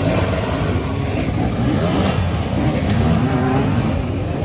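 Dirt bike engines revving, their pitch rising and falling continually.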